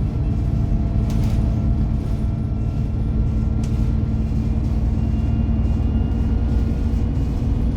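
Alexander Dennis Enviro 300 single-deck bus running: a steady low rumble with faint, thin whining tones above it that drift slightly in pitch.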